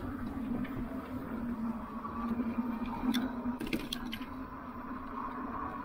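Lectric e-bike's hub motor whining steadily under wind and tyre rumble at speed, with a few light clicks and rattles about three to four seconds in.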